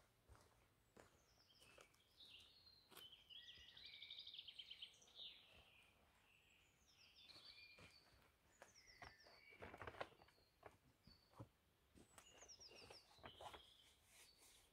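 Faint woodland birdsong, several birds chirping and trilling, with scattered soft knocks and rustles of someone moving about and spreading out a foam sleeping mat, loudest about ten seconds in.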